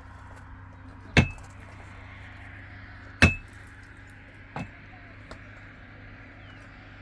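Two sharp metallic strikes about two seconds apart, each with a brief ring, then a lighter knock, over a steady low hum.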